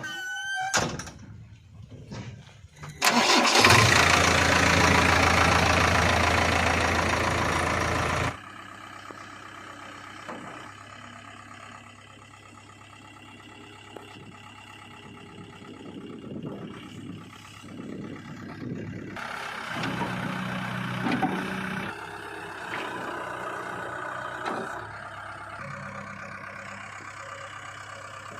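Heavy diesel machinery engines running. A very loud, rough stretch of about five seconds near the start cuts off abruptly, and the engines then run lower, with revs rising and falling.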